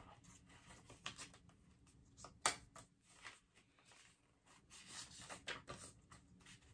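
Faint handling of cosmetic products and packaging: scattered light clicks and rustles, with one sharper click about two and a half seconds in and a short run of rustling near the end.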